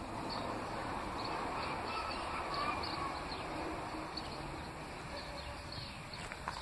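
Faint, distant metallic screeching and groaning with wavering pitch over a steady low rumble of city traffic. It is the 'mysterious' metallic noise likened to a rusted ocean liner, which the recordist wonders may come from trains on a nearby railway.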